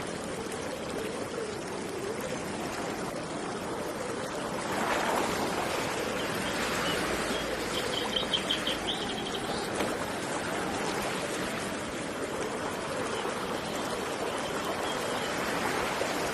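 Running river water, a steady rushing flow, with a short quick bird trill of about eight rapid notes a little past halfway.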